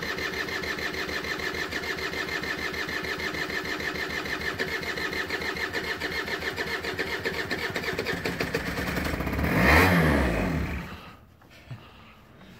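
Kymco Super 9 air-cooled two-stroke scooter engine being turned over by its electric starter, an even, rapid cranking rhythm. Near the end it surges louder for about a second, then stops. The engine has stood for three years and does not start.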